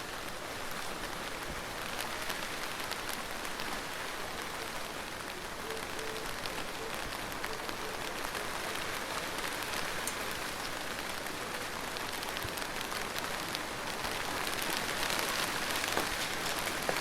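Steady rain with many individual drops pattering and ticking. It grows a little louder and heavier about three-quarters of the way through.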